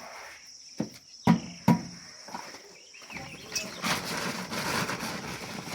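Three sharp knocks about a second in, then a rough scraping noise that sets in about three seconds in and grows louder, over a steady high insect chirr.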